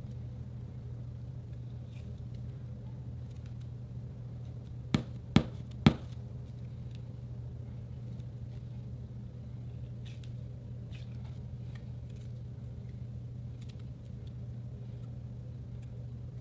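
Hands squeezing and stretching a glitter-filled gel stress ball, with faint sticky handling ticks over a steady low hum. Three sharp clicks come close together about five to six seconds in.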